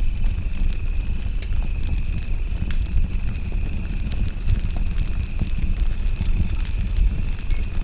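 Campfire crackling with scattered sharp pops over a low steady rumble, while crickets chirp continuously in a high, rapidly pulsing trill alongside a steady insect tone.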